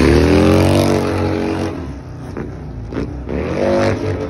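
Cruiser motorcycle engine revving hard for the first second and a half, then easing off. A second rev rises and falls near the end.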